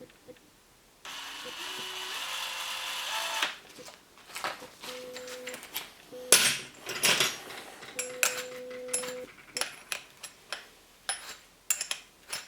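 DeWalt DCD790 brushless cordless drill running steadily for a couple of seconds, then a run of clicks and knocks with two short hums.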